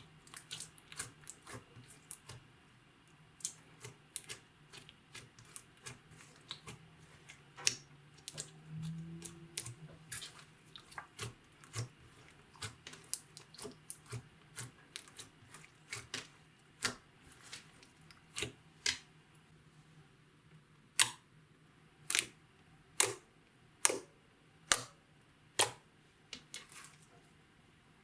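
Slime being mixed, making many small wet clicks and pops. Near the end come six louder pops, about a second apart.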